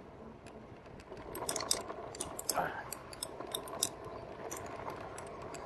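Irregular metallic clicking and light rattling from a RadMini fat-tire electric bike being ridden over rough ground, the clicks coming thick from about a second in over a faint steady hum.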